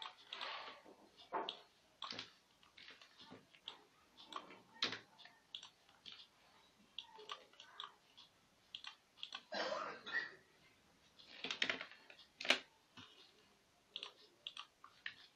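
Irregular clicks of a computer mouse and keyboard keys, with a few short stretches of rustling noise. The sharpest click comes about twelve seconds in.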